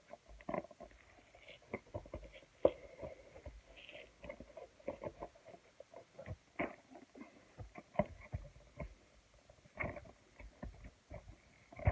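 Toy packaging being handled and opened: irregular crinkles, taps and clicks of cardboard and plastic.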